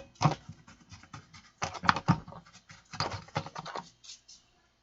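Irregular scratching and clicking in quick clusters, from brushing and picking dust and debris out of a dirty amplifier's chassis.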